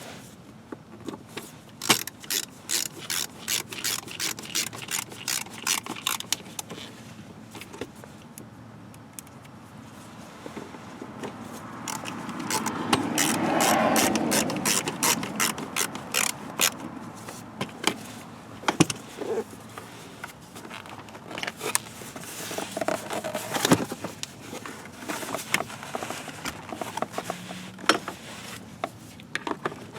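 Ratchet wrench clicking in quick, even strokes, mixed with scattered knocks of tools and parts being handled; about halfway through, a rush of noise swells and then fades.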